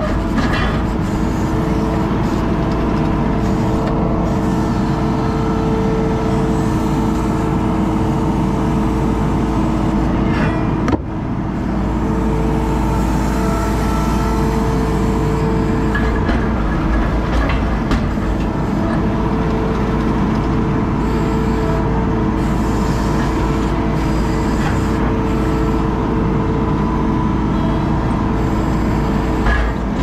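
ASV RT-40 compact track loader running under load, heard from inside its cab. It gives a continuous engine and hydraulic drone with a steady whine, and a few scattered clanks and knocks as it works over broken concrete.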